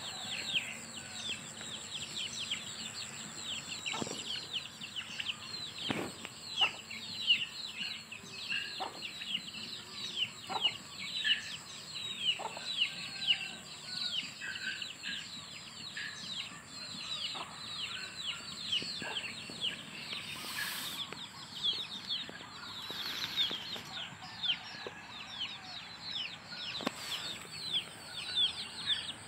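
Chickens feeding: a continuous stream of short, high, falling peeps, with occasional lower clucks and a few sharp taps.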